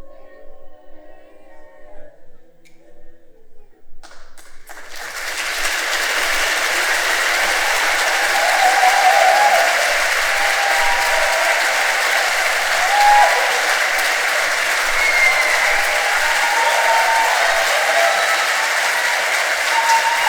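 Soft sung or played tones fade out, then about four seconds in an audience breaks into applause that swells and holds steady, with a few voices calling out over it.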